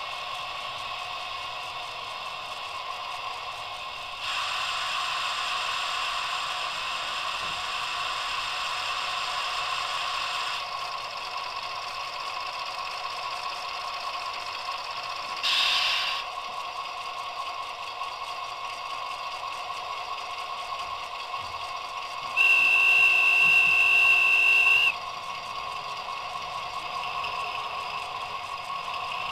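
Sound decoder in an HO-scale model of the SNCF BB 67000-class diesel locomotive BB 67349 plays a steady diesel idling sound through its small speaker. About four seconds in, a louder hiss joins for some six seconds, and a short loud burst comes about halfway through. About 22 seconds in, the horn sounds one steady blast of about two and a half seconds.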